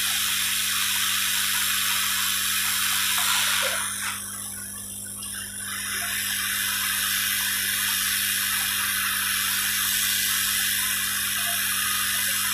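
Hot-air rework gun blowing a steady hiss over a circuit board while a surface-mount IC is reflowed into place. The hiss dips for about two seconds around four seconds in, then resumes, with a steady low hum underneath.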